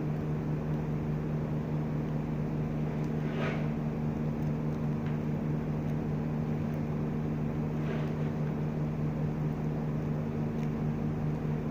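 Steady low mechanical hum from a machine running in the room, with faint rustles of power-supply cables being handled about three seconds in and again around eight seconds.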